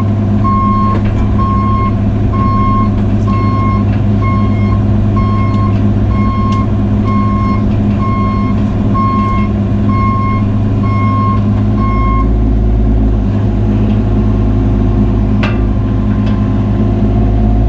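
Cat 303 mini excavator's diesel engine running steadily while its travel alarm beeps about one and a half times a second as the machine moves. The beeping stops about twelve seconds in and the engine keeps running.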